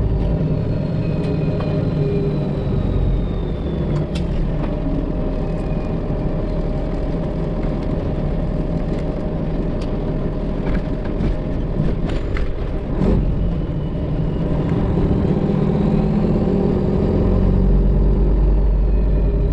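Freightliner Classic XL semi truck under way, heard from inside the cab: its Detroit Diesel 12.7 engine running with a steady low rumble.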